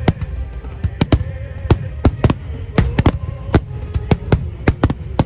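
Star mine firework barrage: shells bursting in quick succession, about three sharp bangs a second over a continuous low rumble.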